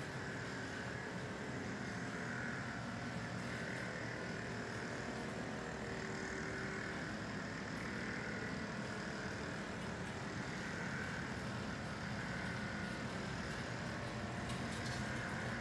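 Steady background drone and hiss with a slow swell and fade in its upper part and no distinct events.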